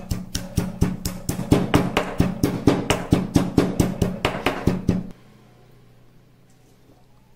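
Stone pestle pounding fennel seeds and cardamom pods in a stone mortar, grinding them to powder: rapid knocks about four a second that stop about five seconds in.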